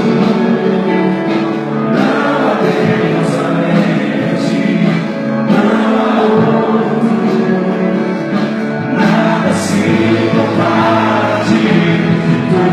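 Gospel worship music with a band and group singing, played loud and steady.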